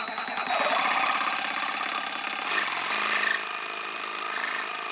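A small power tool running steadily, used to crown a freshly levelled guitar fret.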